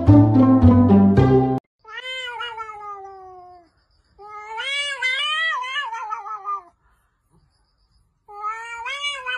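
Cat yowling: three long, wavering, drawn-out calls, the first beginning just after a burst of plucked-string music stops about a second and a half in.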